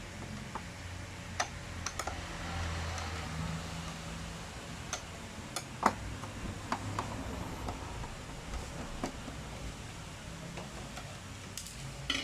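Scattered light clicks and ticks of screws being unscrewed and lifted out of a projector's casing with a screwdriver.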